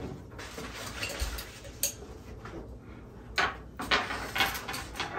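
Knife and fork clinking and scraping on a plate as an egg is cut up, in scattered short strokes, a few of them louder in the second half.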